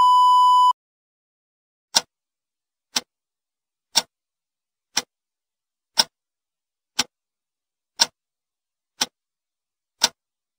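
A short steady test-tone beep with the colour bars, then a clock sound effect ticking once a second, nine ticks.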